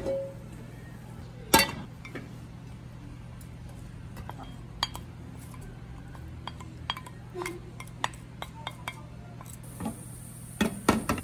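Clinks and knocks of kitchenware: a ceramic bowl and a spoon against a nonstick frying pan as shrimp and oil are scraped in. There is a sharp clink about a second and a half in and a quick cluster of knocks near the end, over a steady low hum.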